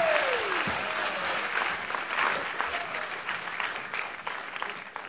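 Audience applauding and cheering, with one falling whoop in the first second; the clapping fades steadily away.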